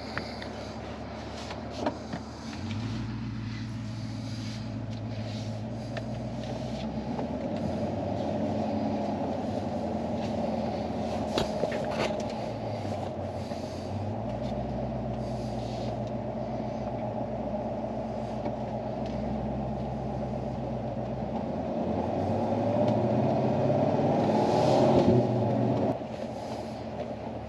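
Chevrolet Corvette C8's 6.2-litre V8 running as the car drives off and cruises, heard from inside the cabin. The engine note steps through a few changes. Near the end the revs climb and the engine grows louder for a few seconds, then it drops back suddenly.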